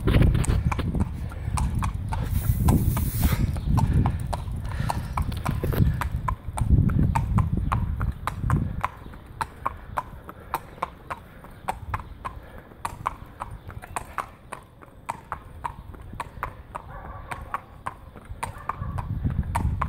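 A horse's hooves clip-clopping at a walk on a tarmac road, a run of sharp, evenly paced clicks. A low rumbling noise sits under them for the first nine seconds or so, then drops away, leaving the hoofbeats clear.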